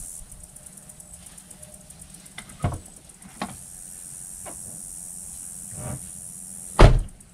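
A few light knocks of things being handled at a pickup truck, then one loud thump near the end as the truck's door is shut. A steady high hiss runs underneath and drops away with the thump.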